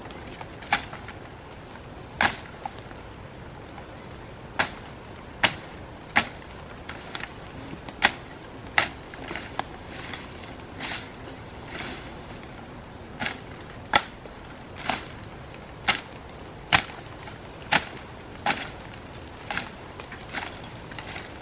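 Sharp blows of a hand tool on wood, struck one after another at roughly one a second, unevenly spaced, about twenty in all.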